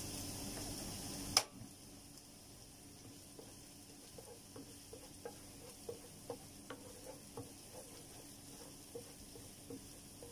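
Ginger-garlic paste frying faintly in oil in a nonstick pan. A sharp click about a second and a half in is followed by a drop in the sizzle, and then by light knocks of a wooden spoon against the pan as it is stirred, a couple a second.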